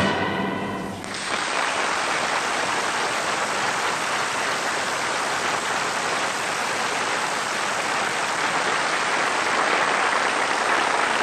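The final held, wavering note of a song fades out about a second in, and a studio audience applauds steadily.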